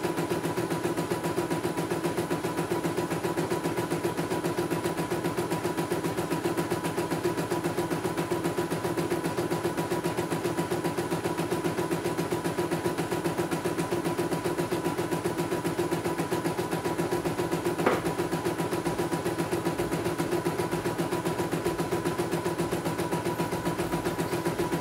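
CNY E900 portable computerized embroidery machine stitching a design, its needle running at a rapid, steady rhythm over a constant motor hum, with a single click about three-quarters of the way through.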